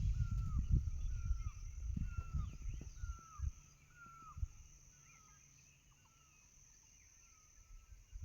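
A bird calling over and over, a short downward-falling note repeated roughly every 0.7 seconds, growing fainter in the second half, over a steady high-pitched hiss. Low rumbling and thumps dominate the first three seconds or so, then die away.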